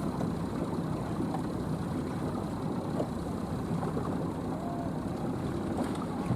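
A boat's engine running steadily, a low even hum.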